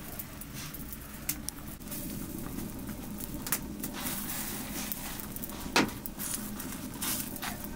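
Open wood fire crackling, with scattered small pops and one louder snap about six seconds in.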